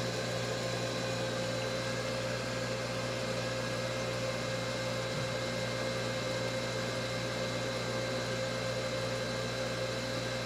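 Steady hum with a hiss of water running through a hot-water boiler's piping as the system refills and its pressure builds.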